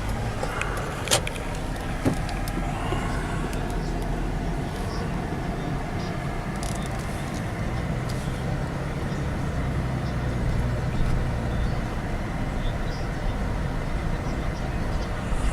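Steady road and engine noise inside a moving car, with a sharp click about a second in and a smaller knock shortly after.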